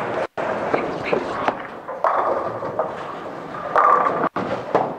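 Bowling ball crashing into the pins about four seconds in, a loud clatter of falling pins, over the knocks and din of a busy bowling alley.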